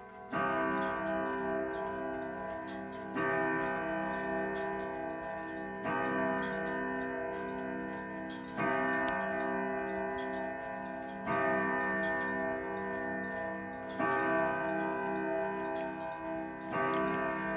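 Howard Miller 610-152 grandfather clock with an Urgos movement striking the hour at eight o'clock. There are seven slow strokes about 2.7 s apart, each ringing with many tones until the next one.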